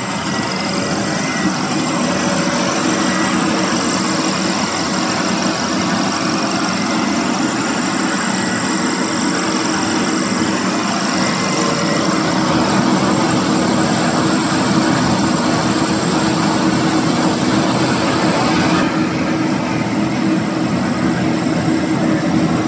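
Pet food extrusion line machinery running: a loud, steady mechanical hum and hiss with a low drone. The higher hiss drops away a few seconds before the end.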